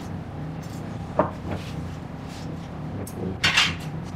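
Restaurant kitchen background: a steady low hum with a few short knocks and clatters of kitchenware. The loudest clatter comes about three and a half seconds in.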